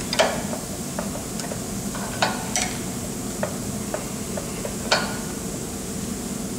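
Keyway broach being pressed dry through an aluminium pulley bore with an arbor press: irregular sharp clicks and snaps as the broach teeth cut, a few louder than the rest, over a steady low hum.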